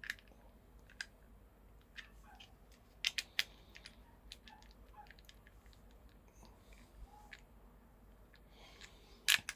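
Scattered small clicks and taps of hands fitting parts of a 400 amp mega fuse and its cable connections, with a sharper double click about three seconds in and the loudest click near the end.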